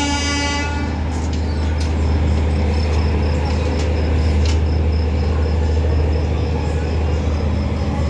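Train horn sounding and cutting off within the first second, then the steady low rumble of a moving train with a few clicks. A faint high pulse repeats about four times a second.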